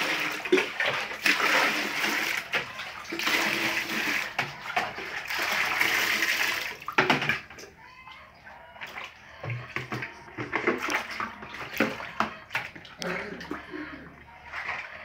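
Water poured from a plastic dipper into a basin in several scoops over about seven seconds, then quieter splashing with scattered knocks as metal pots and a bowl are washed in the basin.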